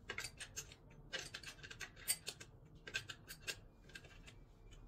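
Irregular clusters of light clicks and crinkles from hands handling a new electric demolition hammer in its hard plastic carry case, with its plastic wrapping.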